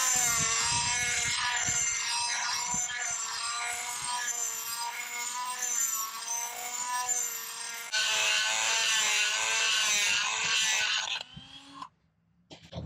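Dremel rotary tool running at high speed, its bit grinding out a slightly undersized hole in a metal anchor bracket. The motor note wavers with the load, grows harsher about eight seconds in, and the tool shuts off near the end.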